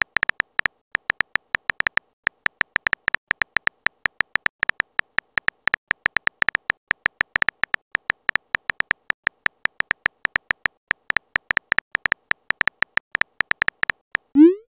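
Simulated keyboard typing clicks from a texting-story chat animation: a fast, uneven run of short, identical electronic blips at one pitch, one per letter typed. Near the end a short rising swoop, the message-send sound.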